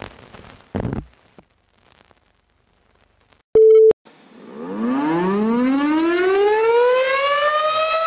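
A siren winding up, rising steadily in pitch over about three seconds and then holding a steady tone near the end. It is preceded by a brief noisy burst about a second in and a short, loud, single-pitched beep just before the middle.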